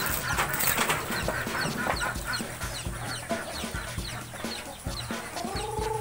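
Chickens clucking, with many short high chirps throughout and a longer rising-and-falling call near the end.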